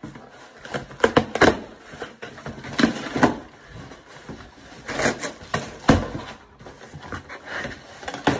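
Cardboard shipping box being torn open by hand: flaps pulled back and cardboard scraping and rustling in irregular bursts, with a few knocks and one heavier thump about six seconds in.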